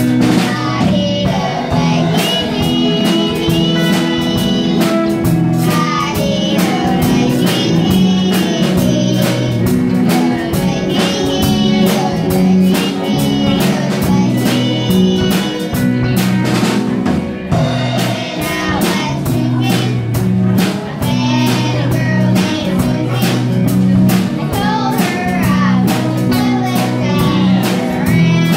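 Young girls singing a country song, backed by a live band with a Ludwig drum kit keeping a steady beat and guitars.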